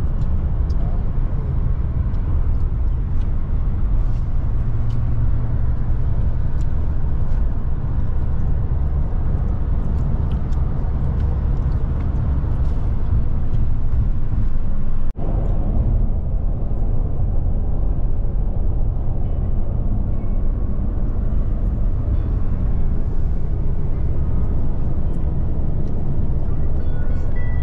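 Steady low rumble of road and engine noise from a car cruising on the highway, heard from inside the car. The sound cuts out for an instant about halfway through.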